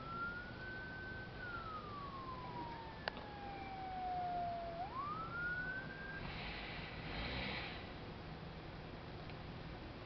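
Emergency-vehicle siren wailing: one tone rising, holding high, sliding slowly down, then sweeping quickly back up and cutting off about six seconds in. A sharp click about three seconds in, and two short bursts of hiss after the siren stops.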